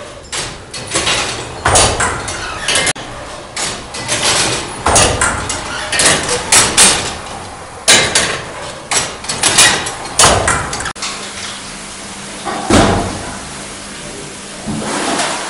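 Newcomen atmospheric steam engine working: irregular heavy clanks and knocks from its moving parts, with bursts of hiss between them. About eleven seconds in the knocking gives way to a steadier hiss with a low hum, broken by one heavy thump.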